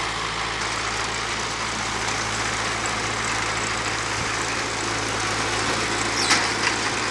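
Farm tractor engine running steadily with machinery noise, a constant low hum under it, and a couple of sharp clicks or knocks about six seconds in.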